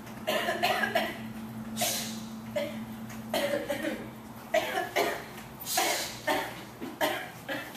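A person coughing over and over in a hacking fit: about a dozen short, harsh coughs.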